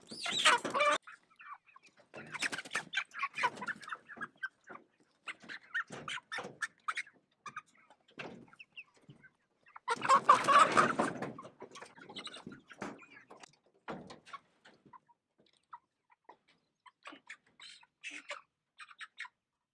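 Cornish Cross broiler chickens clucking and squawking in short, scattered calls as they are caught by hand and loaded into a wire crate, with a louder flurry of noise about halfway through.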